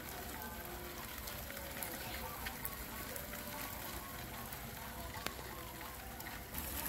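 Faint rustling and pattering of hundreds of live crickets crawling over one another in a plastic bucket, with scattered small ticks.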